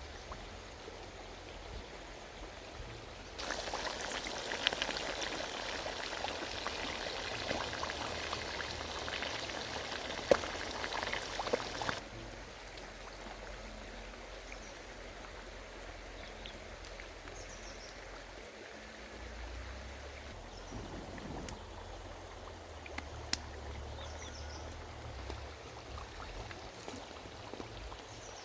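Pork sizzling and crackling as it fries in hot oil in a pan: a steady hiss with scattered sharp pops. The sizzle is much louder for several seconds early on and drops abruptly to a quieter hiss with occasional pops.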